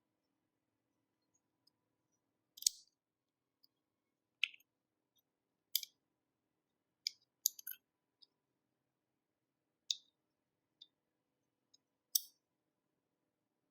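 Short, sharp clicks and snaps of hard plastic and small parts as a power bank is being taken apart, about eight of them at irregular intervals, some in quick pairs.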